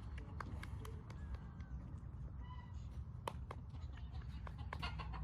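Footsteps crunching unevenly over frozen farm-yard ground, with wind rumbling on the microphone and one short animal call about two and a half seconds in.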